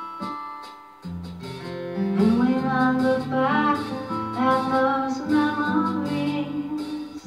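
A song with strummed acoustic guitar; a singing voice comes in about two seconds in over the guitar.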